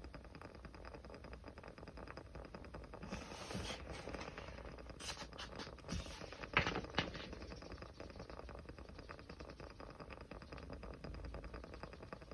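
Small fire crackling steadily with fine, dense ticks, and a few louder pops and snaps between about three and seven seconds in.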